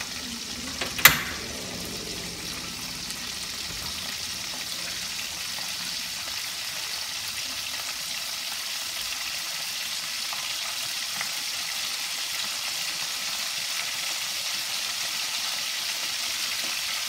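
Eel pieces frying in oil in a wok, a steady sizzle, with one sharp clank about a second in.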